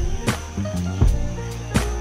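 Background music with a drum beat and deep held bass notes.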